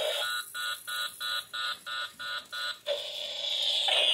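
Spengler's Neutrona Wand toy playing its electronic firing sound, broken by a run of about eight even beeps, about three a second. This is the warning that comes after it has been fired at full power for a while and is about to shut itself off. The steady firing sound then returns and starts to fall in pitch near the end.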